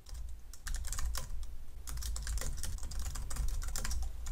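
Typing on a computer keyboard: a quick, irregular run of keystroke clicks, with a steady low hum underneath.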